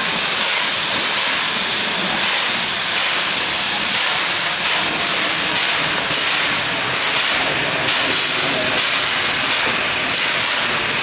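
Steam locomotives letting off steam: a steady, loud hiss of escaping steam with no clear exhaust beats.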